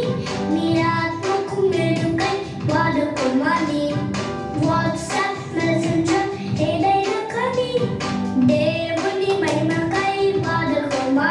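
Children singing a Telugu Christian action song together over music with a steady beat.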